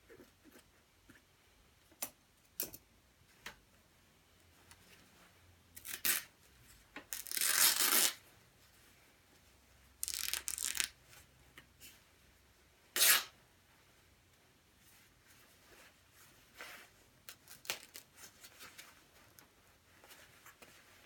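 The glossy synthetic shell fabric of a down jacket being torn open by hand: four loud rips between about six and thirteen seconds in, the longest lasting about a second, after a couple of sharp clicks about two seconds in and followed by soft rustling of the fabric.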